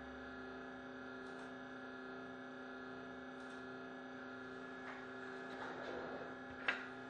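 Steady electrical mains hum made of several held tones. Near the end there is a faint rustle and then one sharp click.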